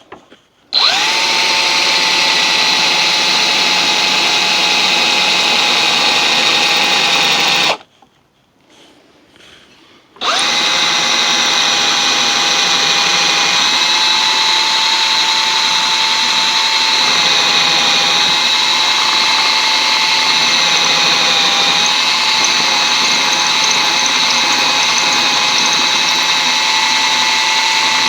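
Electric drill boring a dowel hole into an oak chair leg repair block, its motor whining at a steady pitch. It runs for about seven seconds, stops for a couple of seconds, then starts again and keeps running.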